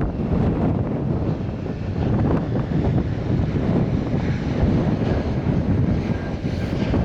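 Wind buffeting the microphone: a steady, gusty low rumble that masks most other sound.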